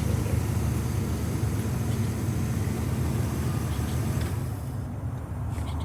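Steady low rumble of an idling vehicle engine with traffic hiss around it; the higher hiss drops away near the end.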